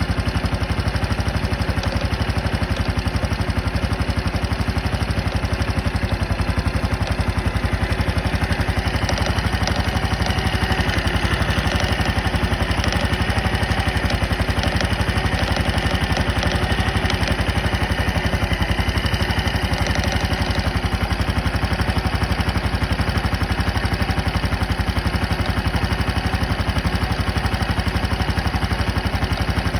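Honda Super Cub 110 (JA07) air-cooled single-cylinder four-stroke engine idling steadily, carrying an abnormal noise that the owner has noticed.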